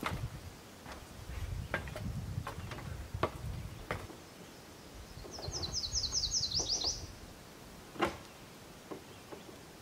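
Knocks and clanks of shoes on the rungs of an aluminium ladder as a man climbs it and steps onto a metal roof, with a louder knock about 8 seconds in. A bird sings one quick trill of about ten high notes around the middle.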